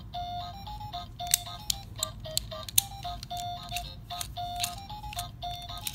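Background music: a simple, light melody of short notes stepping up and down, with a few sharp clicks scattered irregularly through it.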